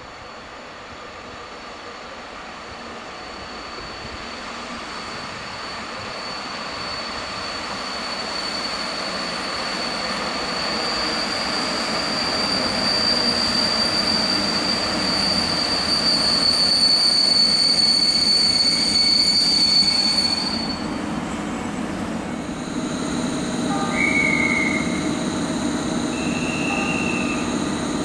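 PKP InterCity electric locomotive and passenger coaches pulling into the platform, growing steadily louder, with a steady high brake squeal that cuts off about three-quarters of the way through as the train stops. The standing locomotive then hums steadily, with two short high chirps near the end.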